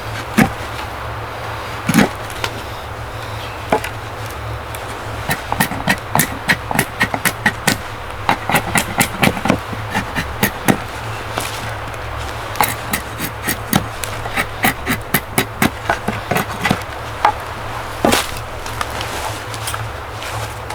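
Wood being struck: a series of sharp knocks and quick taps, a few spaced out at first, then fast runs of several taps a second through the middle, and a single louder knock near the end, over a steady low rumble.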